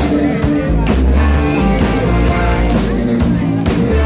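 Live rock band playing loud: drums keeping a steady beat under electric bass, electric guitar and keyboards.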